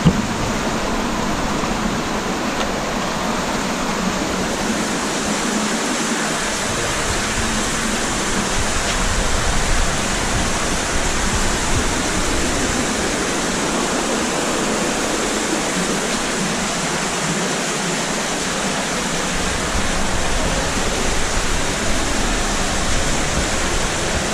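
Steady rush of water from a cave stream and its waterfalls, an even wash of noise.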